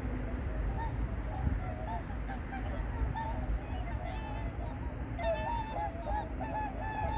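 A flock of whooper swans calling: many short honking, bugling calls overlapping, growing denser and louder about five seconds in, over a steady low rumble.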